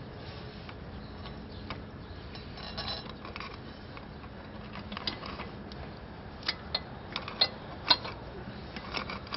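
Scattered sharp metal clicks and clinks from motorcycle rear-wheel parts being handled while the wheel is worked into place, most of them in the second half.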